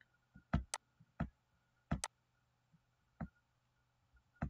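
Computer mouse clicking: about six short, sharp clicks at irregular spacing, some in quick pairs.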